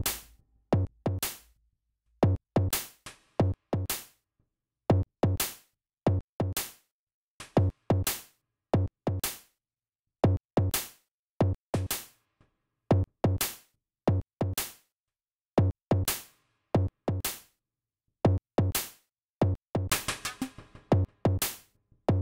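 Drum-machine app (Patterning for iOS) playing a sparse electronic beat: punchy, clicky kick-drum hits in short groups of two to four, with silent gaps between the groups. Near the end a denser, busier pattern with a held low tone comes back in.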